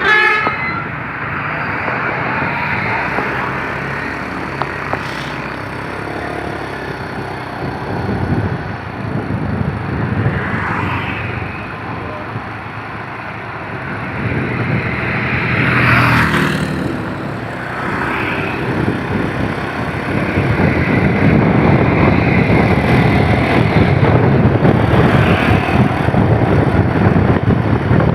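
Road traffic noise: vehicles passing on the road, with a few short swooshing passes near the middle and a steady engine and wind rush that grows louder over the last third. The tail of a multi-tone telolet horn cuts off at the very start.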